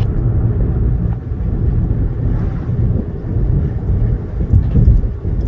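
Steady low rumble of a moving car heard from inside its cabin: road and engine noise while driving.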